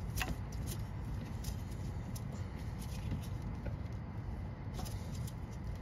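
A few faint, scattered clicks of fingers working a plastic quick-release fuel line connector, over a steady low rumble.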